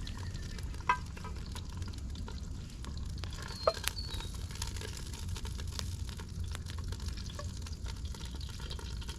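Sausages sizzling in a cast-iron camp oven over a campfire, with a couple of sharp metal clinks as they are lifted out.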